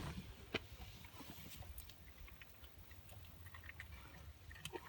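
Mostly quiet, with one sharp click about half a second in, then a scatter of faint small clicks and light scraping over a low hum.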